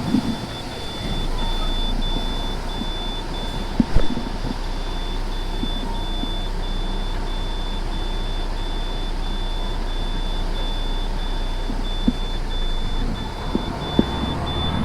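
A truck's engine running steadily, with a high electronic beep repeating about twice a second over it, like a warning or reversing alarm. There are a few sharp knocks, the loudest about four seconds in.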